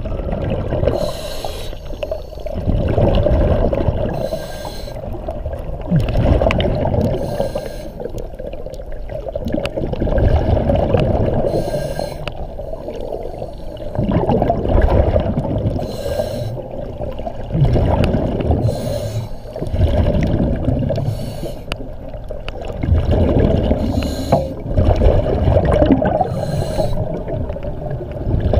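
A diver breathing through a diving regulator underwater: a short hiss on each inhale and a bubbling rumble on each exhale, repeating every three to four seconds.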